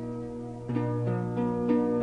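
Soft background music of plucked strings over a held low note, with a new note coming in every few tenths of a second.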